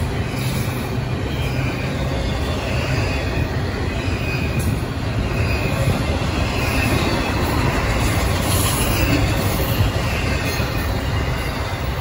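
Double-stack intermodal freight train rolling past: a steady low rumble of steel wheels on rail, with brief faint high wheel squeals now and then.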